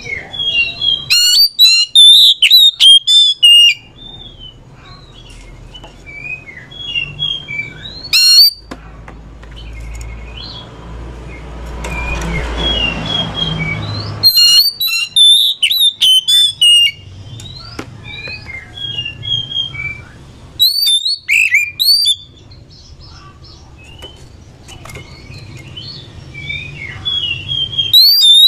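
Oriental magpie-robin (kacer) singing: loud bursts of quick, varied whistled notes about five times, with softer chirps between them. A low rumble runs underneath through the middle.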